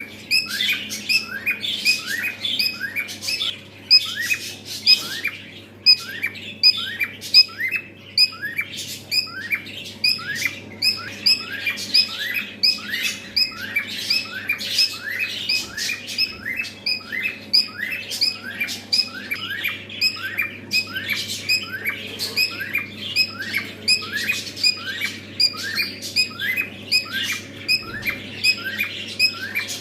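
Pet cockatiel giving short, rising chirping calls over and over, about two to three a second, without a break.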